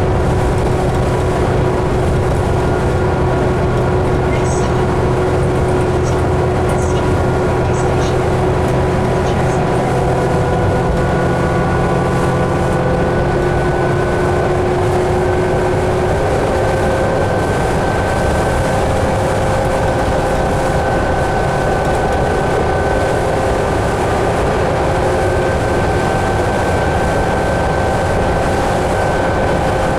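2011 New Flyer D60LFR articulated diesel bus under way, heard from inside the cabin: a steady engine and drivetrain drone with several whining tones that step up slightly in pitch about halfway through. A few light rattles come through in the first third.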